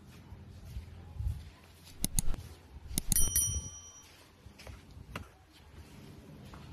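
Several sharp mouse clicks, then a short bright bell ding that rings for under a second. This is the click-and-bell sound effect of a subscribe-button animation.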